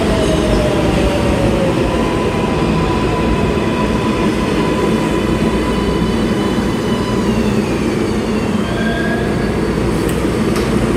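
R188 subway train on the New York 7 line pulling into the station and slowing: a steady rumble of wheels on rail, with a whine that falls in pitch as it brakes and a few sharp clicks near the end.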